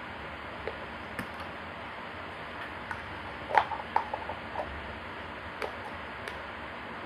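A hollow plastic toy egg being opened and closed in small hands: light plastic clicks and clatter, sparse at first, with a short flurry a little past halfway through that is the loudest part. A steady background hiss runs underneath.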